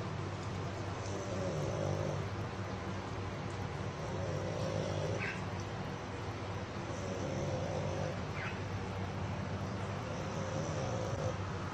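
French bulldog snoring as it lies on its back, a rough breathing sound that comes back about every three seconds.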